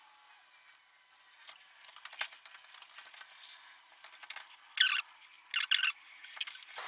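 Short gritty scrapes and rubs in moulding sand as a small gate is shaped in a casting mould, several separate strokes with the loudest pair near the end.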